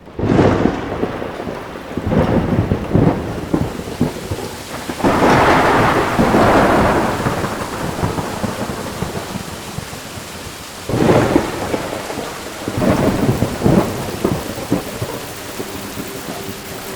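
Heavy rain falling steadily, with several loud rolls of thunder rumbling in and fading every few seconds.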